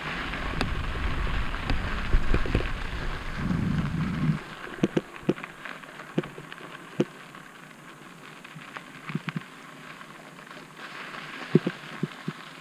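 Mountain bike riding down a dirt singletrack: the tyres hiss and crunch over the dirt and the bike rattles with scattered ticks and knocks over bumps. A heavy low rumble runs under it for about the first four seconds, then drops away.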